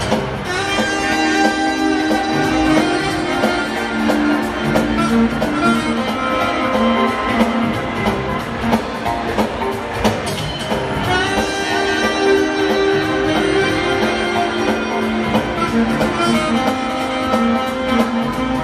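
A saxophone playing an instrumental melody over a pre-recorded backing track of guitar and drums.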